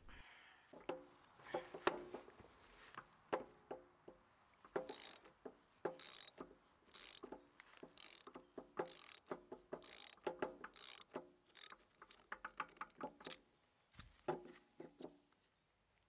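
Faint socket ratchet clicking in short runs as a T25 Torx bit loosens the set screw holding the shaft coupler on a small hydraulic gear pump.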